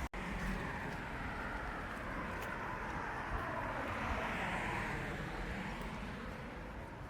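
Road traffic: a vehicle passing on the road, its tyre and engine noise swelling to a peak midway and then fading.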